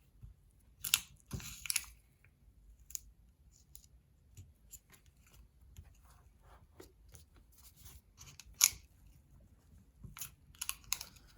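Painter's tape being pulled off the roll and laid down: a scatter of short crackling rips and small ticks, the sharpest about a second in and again near nine seconds.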